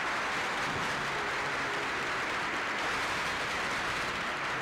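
Large audience applauding: a dense, steady roll of clapping that swelled up just before and holds evenly throughout.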